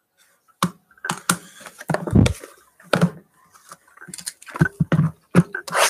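Trading card boxes and card holders handled on a tabletop: a run of irregular taps, clicks and knocks that starts about half a second in, with one heavier thump about two seconds in.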